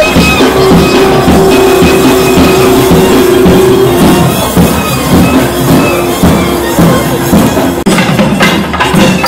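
South Indian temple procession music, nadaswaram and thavil: a reed pipe holds one long note for the first few seconds over steady drum strokes, and the playing carries on with drumming after it.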